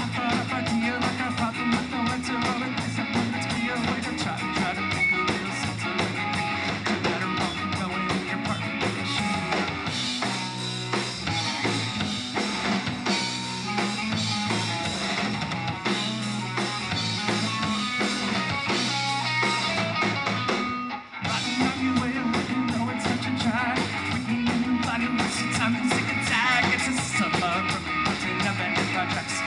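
Live rock band playing an instrumental passage on electric guitar, electric bass and drum kit. The band drops out briefly about 21 seconds in, then comes back in full.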